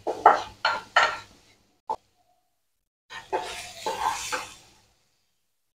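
Spatula stirring and scraping vegetable momo filling in a nonstick kadai: a few quick scraping strokes in the first second and a half and a single click, then after a short silent gap about a second and a half of denser scraping.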